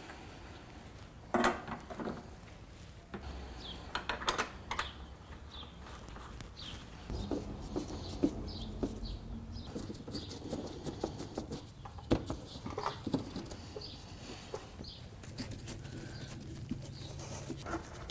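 Scattered clicks, knocks and light scraping from hand tools and plastic clips as an Acura Integra's front bumper cover is fastened on, over a faint low hum.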